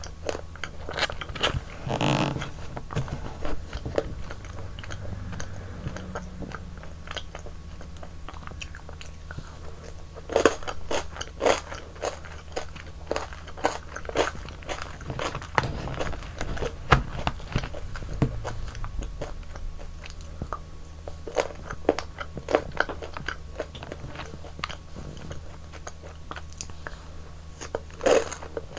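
Close-miked eating of frozen yogurt ice cream: a run of crisp bites, crunches and wet chewing clicks, irregular throughout, over a steady low hum.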